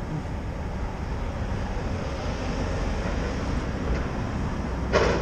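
Demolition excavator working at a distance: a steady low rumble mixed with wind on the microphone, with a short, sharp louder sound about five seconds in.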